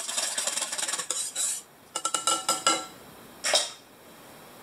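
Metal whisk beating an egg mixture in a glass mixing bowl: rapid clinking strokes against the bowl, in two spells with a short break. About three and a half seconds in, one sharp clack as the whisk is set down in another bowl.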